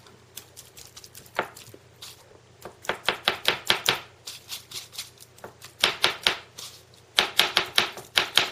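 Silicone basting brush dabbing a wet seasoning paste onto raw pork chops, in short runs of quick strokes, about four or five a second, with pauses between runs.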